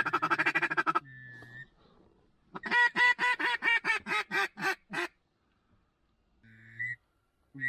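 Mallard duck call blown in a hen mallard cadence: a rapid chuckling run that stops about a second in, a short quack, then a loud series of about eight quacks falling in pitch, the greeting call used to turn circling mallards. Two single quacks follow near the end.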